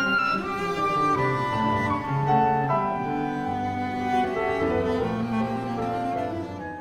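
Background chamber music from a clarinet, cello and piano trio, playing slow held melodic lines. It gets quieter near the end.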